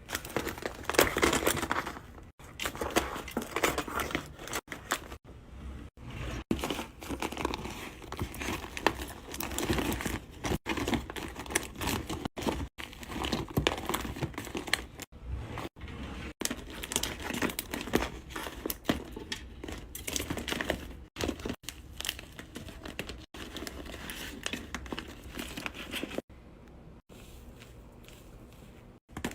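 Handmade paper squishy being squeezed and squished by hand: dense crinkling of taped paper, broken by many abrupt cuts and fainter near the end.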